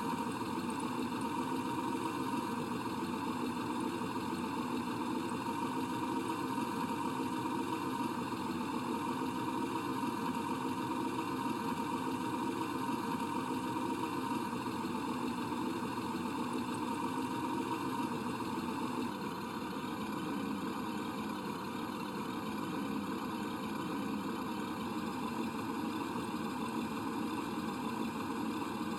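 Radio-controlled truck engine sound, running steadily at idle, dropping slightly in level about two-thirds of the way through.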